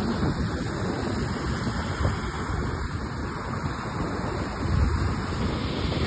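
Sea surf washing onto a pebble shore, a steady rushing wash, with wind buffeting the microphone in a low rumble.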